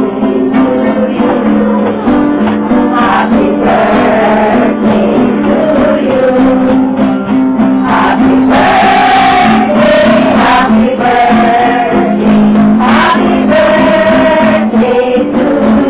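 A Christmas carol sung by a group of voices to a strummed acoustic guitar.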